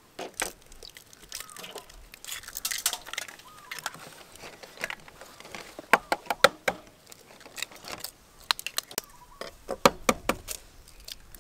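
Duck eggshells being cracked and peeled by hand: irregular small clicks and crackles, with now and then a louder tap of egg or shell on a steel bowl.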